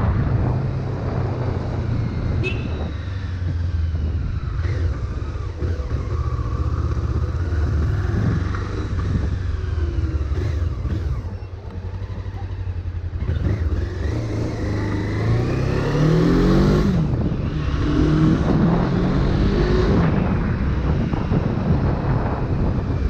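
Honda CB500 motorcycle's parallel-twin engine running under way, heard from the rider's seat. It eases off briefly around eleven seconds in, then the revs climb in rising sweeps about fifteen and eighteen seconds in as it accelerates.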